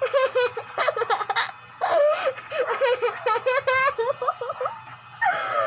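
A young girl laughing: high-pitched giggles in quick strings of short bursts.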